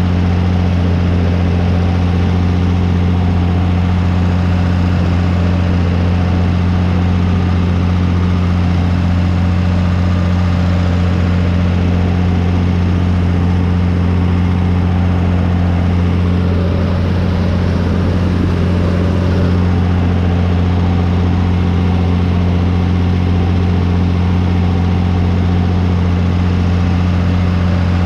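John Deere 3350 tractor's diesel engine running at a steady speed as the tractor drives along the corn rows, heard from the driver's seat: a loud, even, low drone that does not change.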